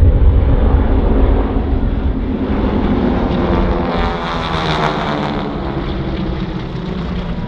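Piston-engined propeller aircraft flying past, a steady engine drone whose tone sweeps as they pass about halfway through.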